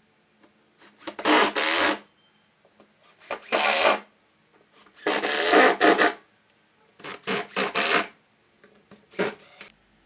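A hand tool rubbing across wood in five separate strokes, roughly every two seconds, each a scraping hiss under a second long.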